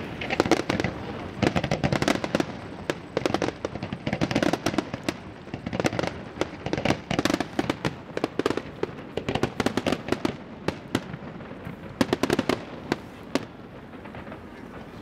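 Aerial fireworks display going off: many sharp bangs in quick succession, several a second, thinning out near the end.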